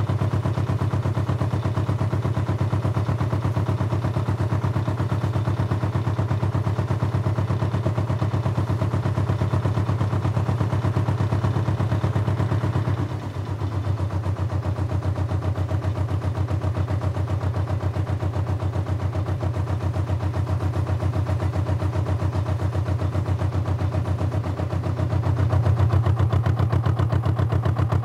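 An engine running steadily with a fast, even beat. It drops briefly about halfway through, then picks up again and grows a little louder near the end.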